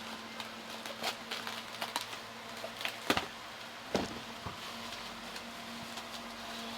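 Scattered clicks and taps from Hot Wheels die-cast toy cars and their packaging being handled, two sharper knocks about three and four seconds in, over a steady low hum.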